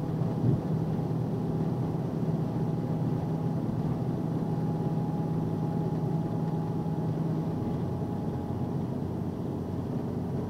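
Steady road and engine drone heard inside a vehicle's cabin at highway speed, about 67 mph. A low hum runs under it and fades out about three-quarters of the way through. There is a brief bump about half a second in.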